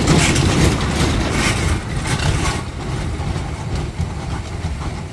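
Engine of a small utility truck that tows chair trailers, running close by, with some short clatter over it. It grows quieter about halfway through.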